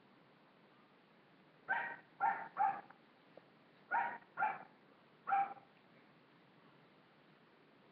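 A dog barking six times, in two runs of three about two seconds apart.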